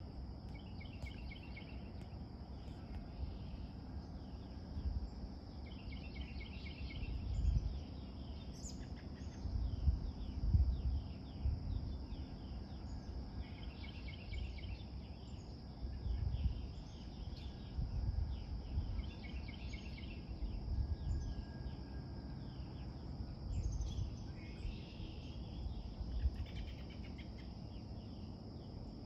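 Woodland ambience: a steady high insect drone, with birds calling in runs of quick repeated chirps several times. Irregular low rumbles come and go and are the loudest sounds.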